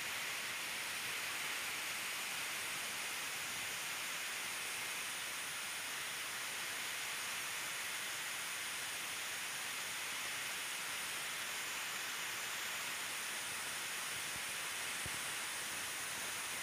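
Steady, even hiss with no other events, strongest in the upper range.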